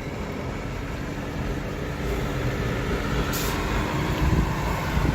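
A vehicle driving: steady engine and road rumble that grows slightly louder.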